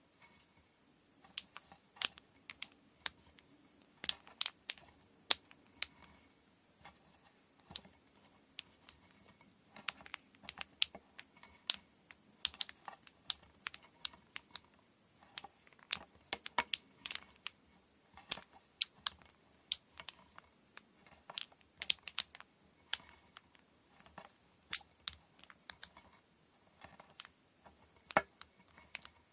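Irregular light clicks and taps of small hard objects being handled while kumihimo braiding supplies are prepared by hand, several sharp ticks a second in uneven clusters.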